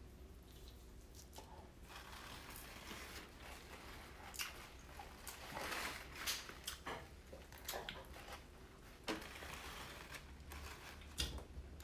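A person chewing and eating lobster close to the microphone, with irregular short clicks and smacks of mouth and food.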